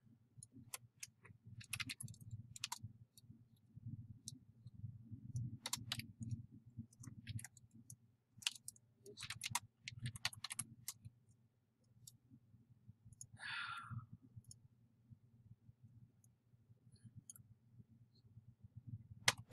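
Computer keyboard keystrokes and mouse clicks, sparse and irregular, a few at a time with pauses between, over a faint low hum.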